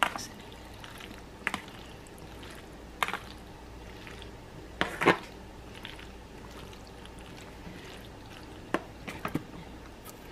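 Plastic spoon stirring buttered macaroni and cheese cubes in an aluminium foil pan: a few separate wet squishes and scrapes, the loudest about five seconds in.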